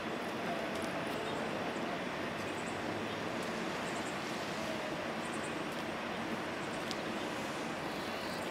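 Steady outdoor background noise: an even hiss with no distinct sounds standing out.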